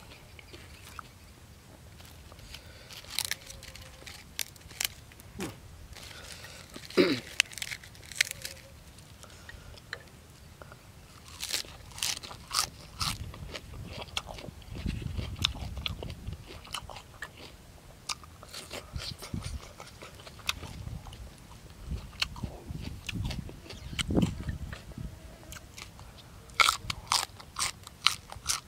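Close-miked chewing and biting of boiled buffalo offal eaten by hand, with irregular sharp crunches and wet mouth clicks.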